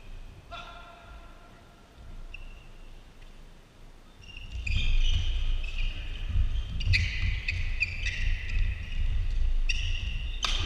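Badminton doubles rally on an indoor court: sharp racket strikes on the shuttlecock, short high shoe squeaks and heavy footfalls on the court floor. The rally starts about halfway in, after a quieter spell with only a few squeaks.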